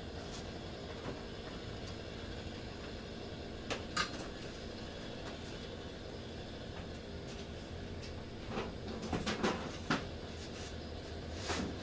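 Light knocks and scrapes of equipment and cables being handled, a pair about four seconds in and a cluster around nine to ten seconds, over a faint steady room hum.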